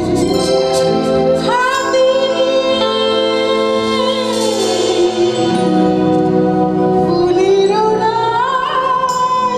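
A woman singing a Bengali song live into a handheld microphone over instrumental accompaniment, holding long notes that slide up and down between pitches.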